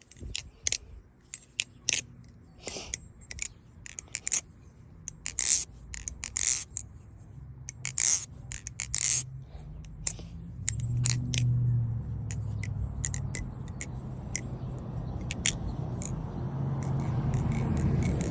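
Balisong trainer (BB Barfly Barracuda V1, lubed with carbon honey) being flipped for a sound test: the handles swing and clack against each other and the pivots, giving irregular sharp clicks and rattles. A low hum builds under the clicks from about halfway through.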